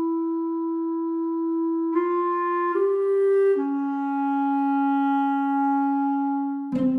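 Background music: a clarinet-like woodwind holds long, steady notes, a few held notes in a slow melody, the last held for about three seconds. Near the end busy plucked low notes come in.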